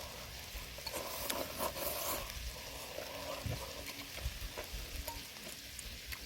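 Pork belly and kimchi sizzling on a grill pan, with a few light clicks of utensils in the first couple of seconds.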